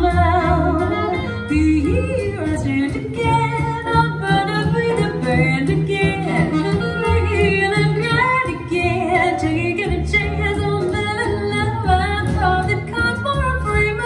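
Female-vocal jazz recording playing through a Sonus Faber Omnia all-in-one speaker, picked up in the room by a phone: singing over band accompaniment with a stepping bass line.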